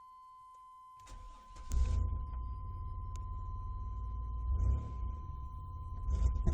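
1996 GMC Jimmy's 4.3-litre V6 cranked by the starter and catching about two seconds in, then idling unevenly with two brief surges. The engine has a misfire and sputter that fouls its spark plugs and sets no codes.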